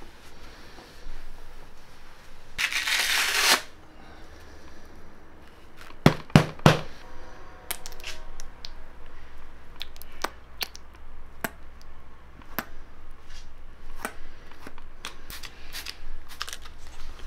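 Handling sounds of getting a polishing pad ready: a rushing noise about a second long near the start, three sharp knocks around six seconds in, then scattered clicks and taps from a flip-cap polish bottle and a spray bottle being handled.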